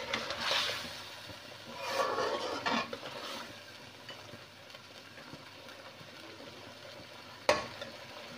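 A spatula stirs and scrapes thick chicken curry around a metal karahi in a few strokes in the first three seconds, over a faint steady sizzle of the gravy frying down. One sharp knock comes near the end.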